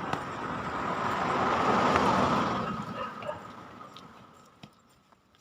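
A car passing by: its road noise swells to a peak about two seconds in, then fades away.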